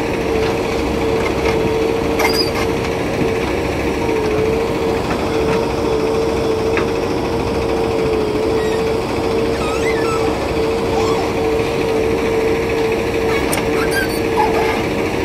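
Diesel engines of a JCB backhoe loader and a tractor running steadily while the backhoe loads soil into the tractor's trolley. A steady hum holds one pitch, dipping slightly now and then.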